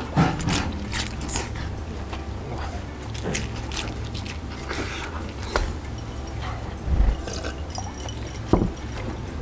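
Close chewing and biting of crunchy deep-fried breaded food, with many short crisp crackles, and two dull thumps in the second half.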